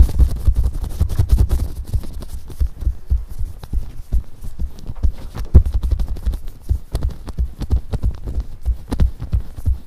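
Plastic-gloved hand rubbing cream over a small squeezable brain model close to the microphone, giving dense, irregular dull thumps and rubbing strokes.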